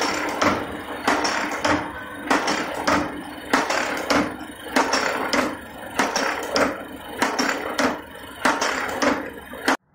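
Automatic dog-leg hook making machine running: its wire-forming dies and slides clack in a steady rhythm of about three strokes every two seconds, with lighter clicks between, over a steady motor hum. The sound cuts off abruptly just before the end.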